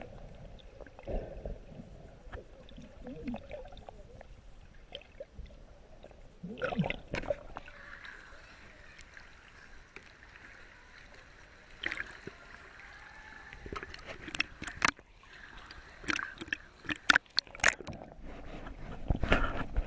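Seawater sloshing and gurgling around an action camera dipping in and out of the surface, with sharp splashes and knocks from about 12 seconds on, the loudest near the end.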